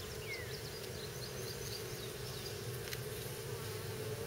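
Honeybees buzzing steadily around an opened hive, with a few quick high chirps in the first two seconds.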